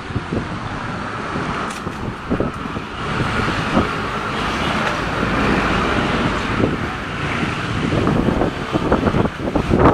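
Strong, gusty wind blowing and buffeting the microphone with a low rumble, swelling louder near the end.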